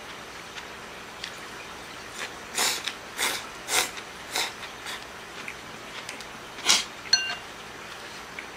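A person slurping ramen noodles: four quick slurps a few seconds in, then one more sharp slurp near the end followed by a brief high squeak.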